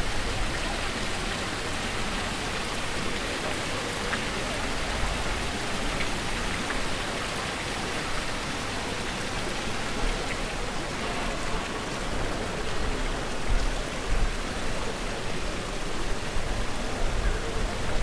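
A steady, even hiss of falling, splashing water.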